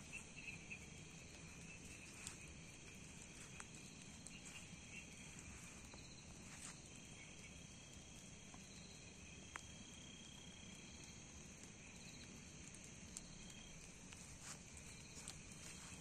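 Faint night insects chirring in a steady high band, with one high trill held for several seconds in the middle and a few soft ticks.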